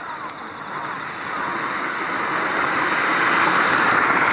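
A road vehicle approaching, its tyre and engine noise growing steadily louder to a peak near the end. Crows caw faintly at the start.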